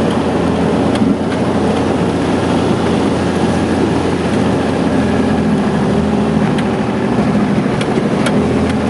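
Off-road 4x4's engine running steadily, with a few light clicks.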